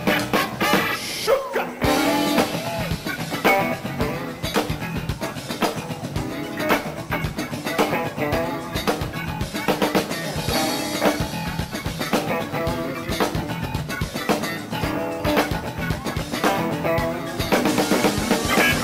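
Live funk band playing an instrumental jam: a steady drum-kit beat with bass and electric guitar.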